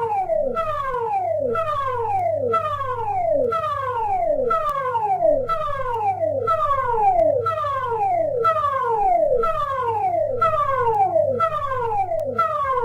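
Electronic siren sounding a repeated falling sweep, a bit more than once a second, over a low steady hum.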